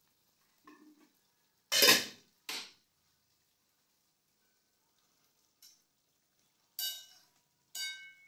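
Metal cookware clattering: a metal spatula knocking and scraping in a metal wok, with a few sharp clanks. The loudest comes about two seconds in, and the last two, near the end, ring on briefly like struck metal.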